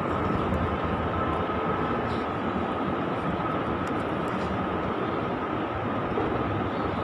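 Steady, even background noise with a faint constant high tone running through it, unchanging throughout.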